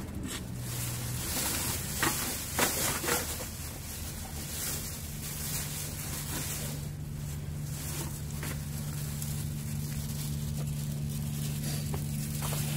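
Litter being picked up and dropped into a plastic bag, with a few sharp knocks and rustles about two to three seconds in, over a steady low engine drone that sets in partway through.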